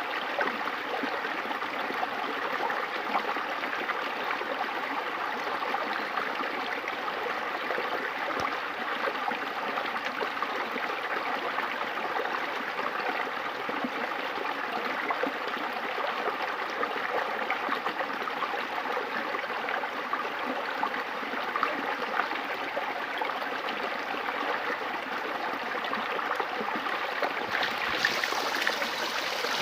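River water flowing steadily, a constant rushing, babbling sound. Near the end it turns brighter and hissier.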